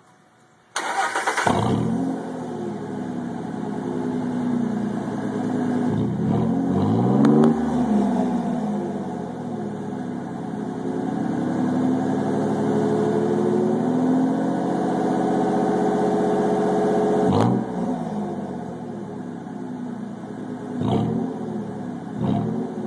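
Ford F-150's 4.2-litre V6 through a Flowmaster 10 Series muffler and dual 3½-inch tips, cats and resonators kept: cranked and started about a second in, then idling and revved up and down several times, with two short blips near the end.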